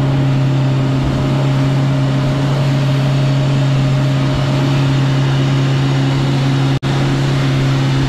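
Boat engine running steadily, a constant drone with no revving, with a rushing noise over it. The sound breaks off for a moment about seven seconds in, then carries on unchanged.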